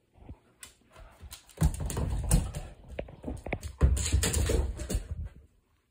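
Dogs playing on a hardwood floor: claws clattering and scrabbling in loud, uneven bursts of scuffles and clicks as one dog dashes about with a toy. It stops abruptly shortly before the end.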